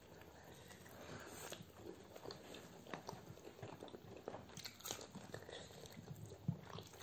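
Faint chewing and wet mouth sounds of people eating rice and chicken gravy by hand, with many small scattered clicks and smacks.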